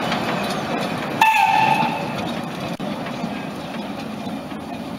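A narrow-gauge steam train's wagons rumble and clatter along the track, fading as the train pulls away. About a second in, the locomotive's whistle gives one short, slightly falling blast.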